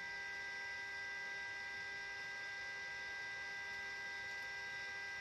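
R48-1800A 48 V rectifier power module switched on, its cooling fan running with a steady whir that carries several fixed high tones.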